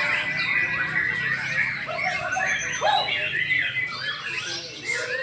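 Several white-rumped shamas singing at once in competition: a dense tangle of overlapping whistles, trills and chattering phrases, over the murmur of a crowd.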